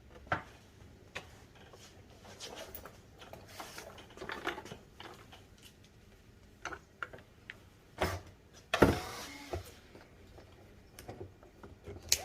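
Hands working on old rubber tubing on a player piano's pneumatic stack: scattered small knocks and clicks with rubbing and scraping, the loudest a knock about eight seconds in followed by a half-second scrape.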